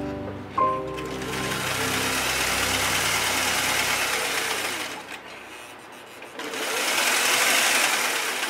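Singer electric sewing machine stitching a seam through linen, running in two stretches with a pause of about a second and a half between them. Background music with notes fades out during the first stretch.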